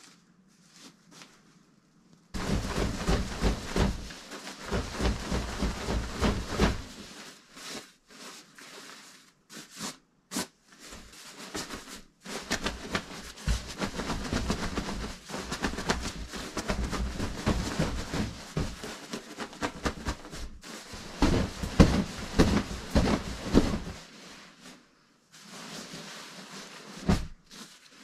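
Fabric of a down-filled sleeping bag rustling and swishing in irregular bursts as it is shaken and handled, fluffing out down that was compressed in vacuum-sealed packing. Starts after a quiet couple of seconds, with a short lull near the end.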